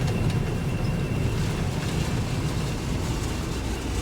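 Combine harvester running steadily: a low machinery rumble with a faint, steady high whine over it.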